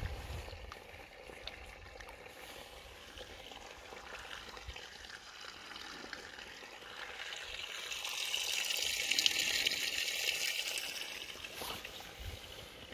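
Shallow spring-fed stream trickling over sand and stones, its rush swelling for a few seconds in the second half and then easing.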